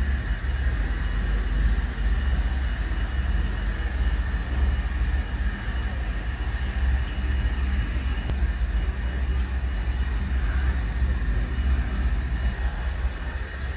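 Wind buffeting the microphone: a loud, steady low rumble that flutters and swells in gusts.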